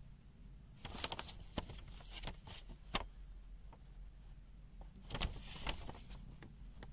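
Clicks and rustling from objects being handled, in two bursts with a sharper click about three seconds in, over a low steady mains-like hum.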